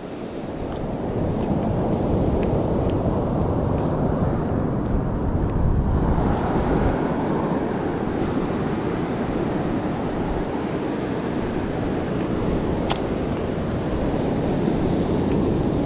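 Ocean surf washing in and breaking along the beach, with wind buffeting the microphone.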